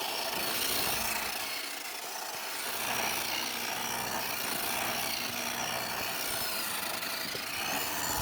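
WPL D12 RC drift truck's small electric motor and gearbox whining as it drives, with a steady hiss. The high whine rises in pitch near the end.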